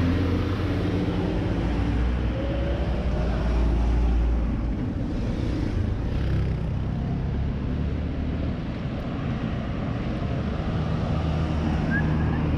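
Car driving along a highway: steady engine and road rumble, easing a little about five seconds in.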